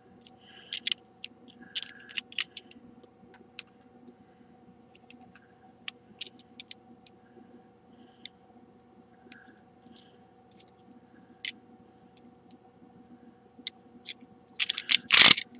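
Utility knife blade trimming excess sprue off a soft orange plastic toy part: scattered small clicks and faint scrapes over a steady faint hum. A short loud noise comes near the end.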